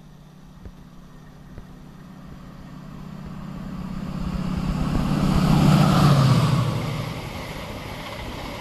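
Chiltern Railways diesel-hauled passenger train approaching and passing at speed. A steady low engine drone and the rush of wheels on rail grow louder to a peak about six seconds in, then ease as the coaches run past.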